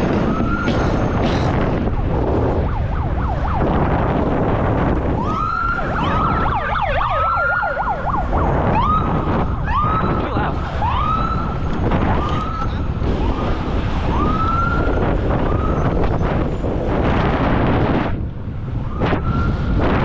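Police siren chirping in repeated short rising whoops, with a rapid warbling stretch about six to eight seconds in, over a steady low rumble.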